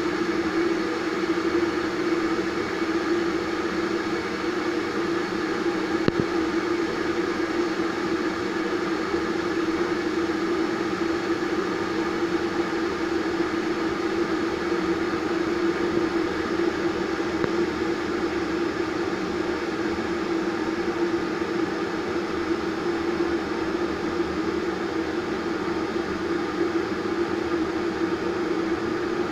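Vitek VT-1138 electric kettle heating water: a steady rushing noise with a low hum that holds unchanged, and a faint tick about six seconds in.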